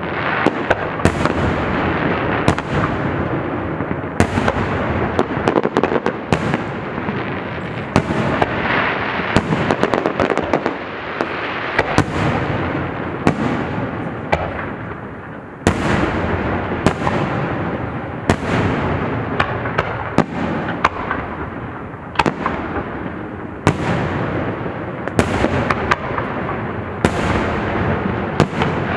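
Aerial fireworks bursting in a rapid, continuous barrage: many sharp bangs and cracks overlapping, with the rumble of one burst running into the next.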